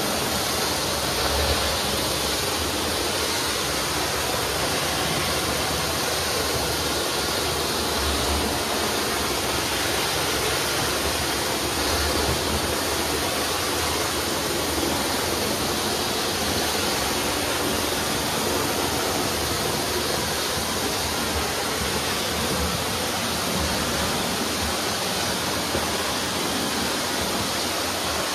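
Tile-and-grout cleaning equipment running: a steady rushing hiss of spraying water, without a break.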